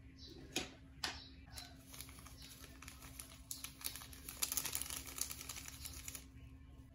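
Instant-noodle seasoning sachet crinkling as it is shaken and tapped over a pile of cooked pancit canton noodles. A couple of sharp clicks come first, then several seconds of quick, fine rustling and ticking that stops shortly before the end. A faint steady hum sits underneath.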